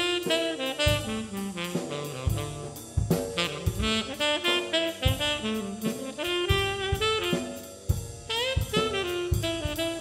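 Instrumental music: a pitched melody line over a steady drum beat.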